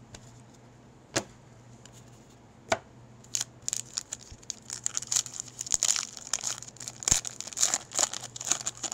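A hockey card pack's wrapper being torn open and crinkled: a couple of soft clicks, then from about three seconds in a dense run of crackling rustles.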